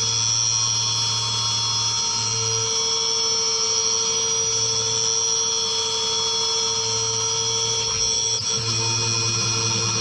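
Skyfire SVM1 mini CNC vertical mill milling an outside contour in aluminium with a 10 mm flat end mill at 7000 rpm under flood coolant: a steady high spindle whine with a low hum that comes and goes, and an extra tone joining near the end.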